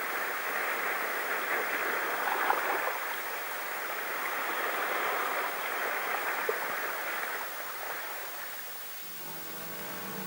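Steady rushing wash of sea water, fading a second or two before the end, when several steady tones come in.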